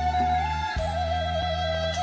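Khmer khloy (bamboo flute) music: the flute plays a slow melody with trilled ornaments over a sustained low backing chord, which changes about three-quarters of a second in.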